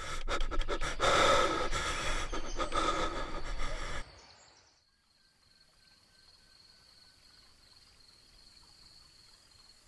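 A loud, harsh breathy rush with gasping and crackling that cuts off suddenly about four seconds in. After it comes a faint ambience with a steady high insect-like tone.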